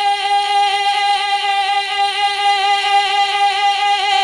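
A voice holding one long sung note in a naat, steady with a slight waver.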